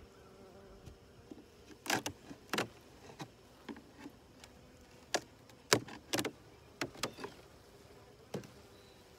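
Honey bees from a weak colony humming faintly and steadily in the open hive, with a dozen or so sharp, irregular knocks and clicks of a metal hive tool prying and loosening the wooden frames, the loudest about six seconds in.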